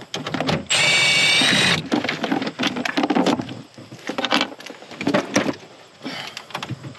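A small cordless power tool's motor whines steadily for about a second while backing out a 7 mm dash screw, then scattered clicks and rattles of the tool, screws and plastic trim follow.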